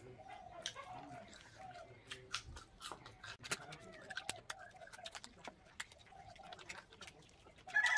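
Close-up eating sounds: small clicks and smacks of chewing and picking at chicken leg meat by hand. Behind them, chickens cluck softly and repeatedly, with one louder call near the end.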